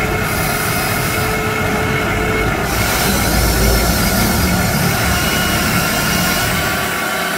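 Huina RC excavator's electric motors and metal gears whining steadily as its upper body swings around, with a grinding, squealing edge and a low rumble that swells about three seconds in.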